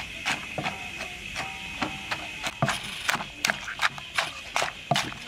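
Wooden pestle pounding shredded green papaya salad in a wooden mortar, a steady run of dull knocks about three a second, with a spoon scraping and turning the mix between strokes.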